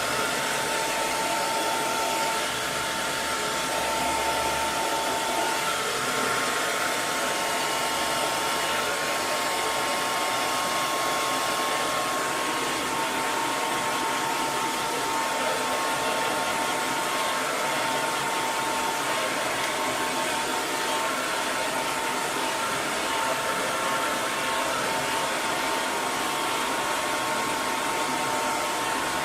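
Hair dryer running steadily: a constant rush of blown air with a steady motor whine.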